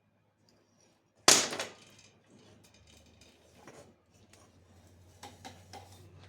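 A single loud, sharp metal clank about a second in that rings briefly, followed by lighter clinks and knocks: tools and metal parts being handled while a motorcycle rear wheel is removed.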